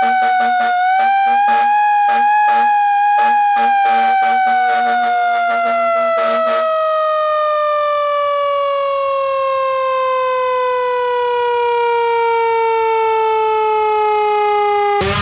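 Civil-defense-style siren winding down, its wail falling slowly and steadily in pitch. For the first half a lower tone pulses on and off beneath it. A sudden loud burst comes at the very end.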